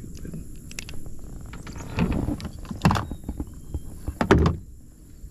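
Handling noise in a kayak: a few dull thumps and knocks, loudest about two, three and four seconds in.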